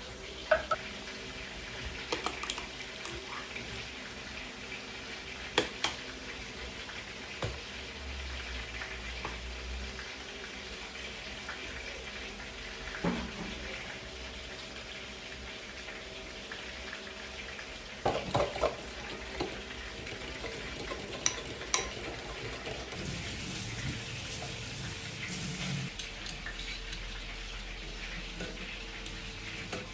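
Kitchen work: scattered clinks and knocks of utensils and dishes against a pan over a steady hiss.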